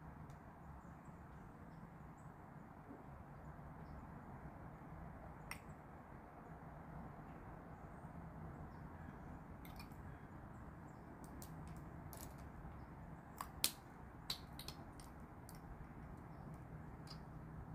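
Faint steady background hum with a scatter of small sharp clicks, mostly in the second half and loudest about two-thirds of the way through, from a lipstick pencil and hand mirror being handled, with rings on the fingers, while lipstick is applied.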